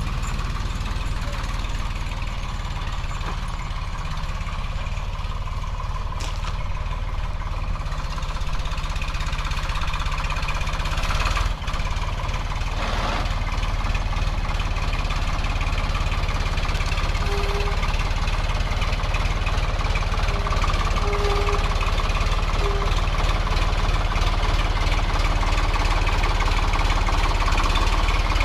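Vintage John Deere tractor engine running steadily, with a brief dip about eleven seconds in and slowly getting louder toward the end.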